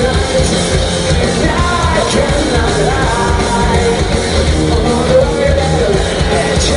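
Loud punk rock band music with a singer's voice carrying a melody over dense guitars and drums.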